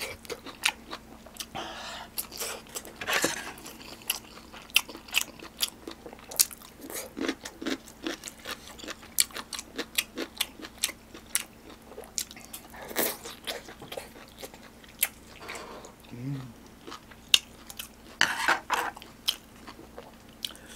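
Close-miked mouth sounds of a person eating: biting and chewing kimchi dumpling and crunchy stir-fried anchovies, with many sharp, wet clicks and crunches.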